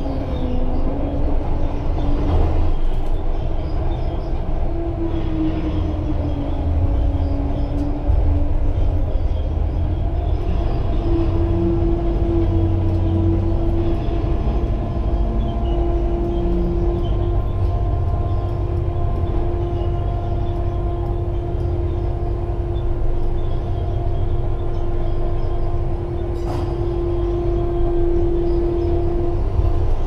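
Liebherr LHM 550 mobile harbour crane machinery heard from the operator's cab while it hoists and slews a container: a steady low drone under a whining tone. The whine shifts up and down in pitch during the first third as the joysticks are worked, then holds steady.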